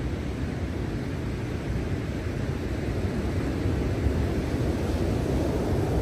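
Storm-driven ocean surf crashing in a steady low rumble, growing a little louder near the end.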